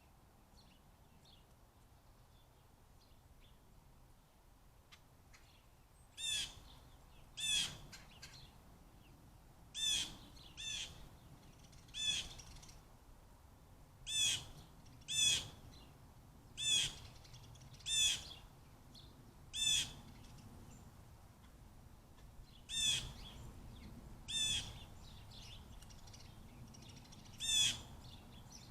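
A bird calling over and over: a short, sharp, high call repeated every second or two, starting about six seconds in, with faint chirping underneath.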